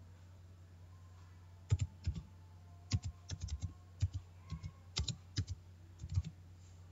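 Typing on a computer keyboard: a run of uneven keystrokes starting about a second and a half in and stopping shortly before the end, over a steady low electrical hum.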